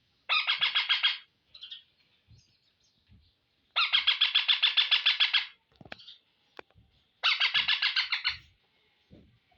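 Rose-ringed (Indian ringneck) parakeet screeching in three bursts of rapid, harsh repeated calls, about nine notes a second, each burst lasting one to two seconds with short pauses between.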